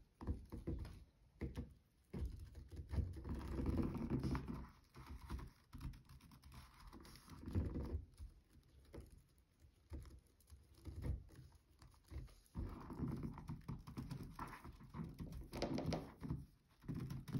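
Irregular handling noises of sock-and-rice craft materials: fabric rustling, with light taps and knocks on the work surface coming in uneven bursts.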